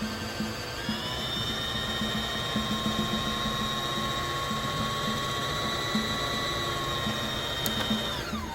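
Home sewing machine's electric motor running steadily while winding the bobbin. It picks up speed about a second in, then winds down and stops right at the end, as the bobbin finishes filling.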